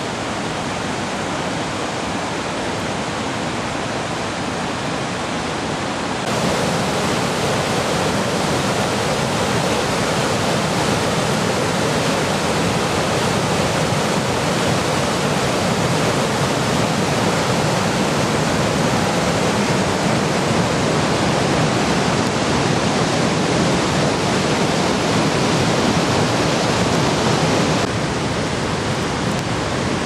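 Steady rushing of a wide, low river ledge waterfall (the Tosna waterfall). It gets louder and brighter about six seconds in and drops back a little near the end.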